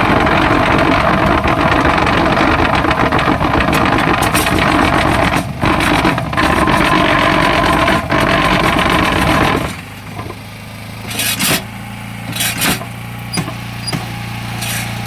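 Concrete block-molding machine vibrating a mould: a loud, dense rattle for about ten seconds, with two short breaks. It then stops, leaving the machine's engine running steadily, with a few sharp knocks.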